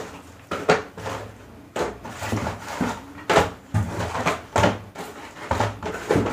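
Cardboard firecracker boxes being shuffled and knocked about inside a large cardboard carton as someone rummages in it: irregular scrapes, rustles and dull thumps, a few each second.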